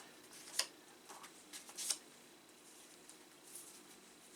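Faint handling noises: a few brief clicks and rustles, one about half a second in, a pair near two seconds, and a weaker one later.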